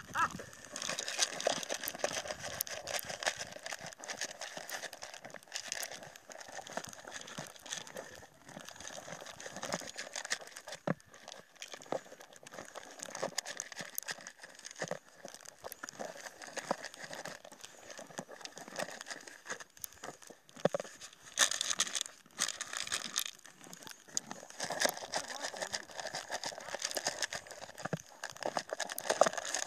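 Horse eating dry maize kernels from a plastic bowl: continuous crunching and crackling of the grain as it chews, with many small clicks, and a few louder stretches past the middle.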